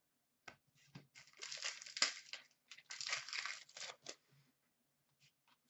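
Plastic trading-card pack wrapper being crinkled and torn open by hand. After a couple of light clicks there are two stretches of crinkling, each about a second long.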